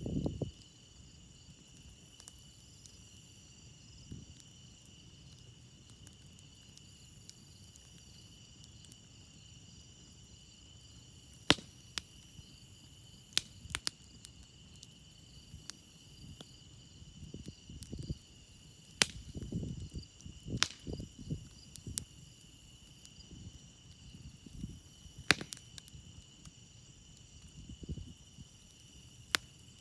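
Crickets chirping in a steady high drone while a campfire crackles, with half a dozen sharp pops scattered through the second half. Soft low rumbles from the fire gather a little past halfway.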